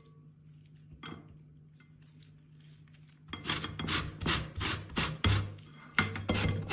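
Orange peel being zested on a metal box grater: after a quiet start, a quick run of rasping strokes begins about three seconds in as the orange is rubbed up and down the grater.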